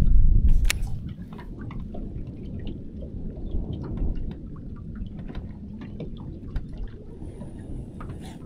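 Water lapping and sloshing against a small boat's hull, under a steady low rumble that is loudest in the first second, with faint scattered ticks.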